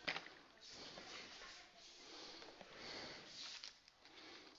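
Faint breathing, a few slow soft breaths.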